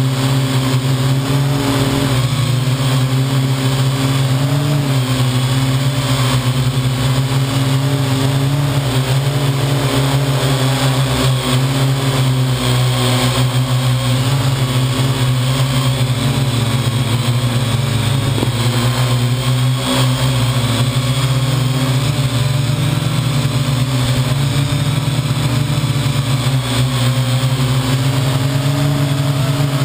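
Parrot AR.Drone quadcopter's four electric motors and propellers humming steadily in flight, heard close up, wavering slightly in pitch.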